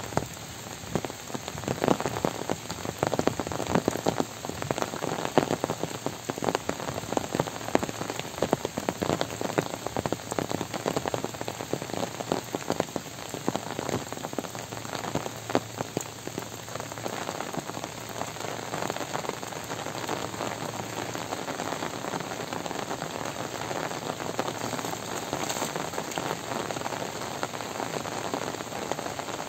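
Heavy rain pattering on an umbrella overhead and on the wet ground around it. The sharp, dense drop hits are loudest through the first half, then settle into a steadier hiss.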